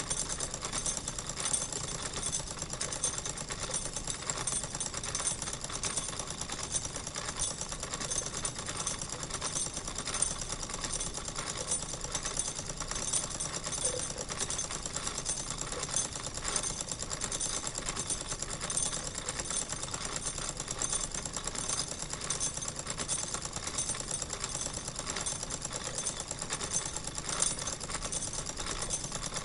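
Wilesco toy steam engine running steadily, purring along with a fast, even beat that does not change.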